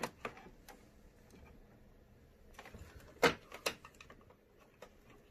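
Small plastic clicks and knocks as a part is worked back into place on the print head carriage of an Epson EcoTank printer, with two sharper clicks a little past three seconds in.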